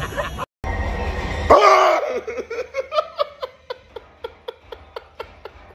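A person's loud cry about a second and a half in, followed by a long run of short, evenly spaced laughs, about three a second, slowly fading.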